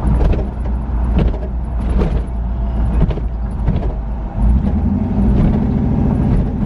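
6.0-litre LS V8 in a Chevy Nova running as the car drives, with scattered short knocks and rattles from the car going over bumps on worn rear shocks. Somewhat over four seconds in the engine note grows louder, as under acceleration.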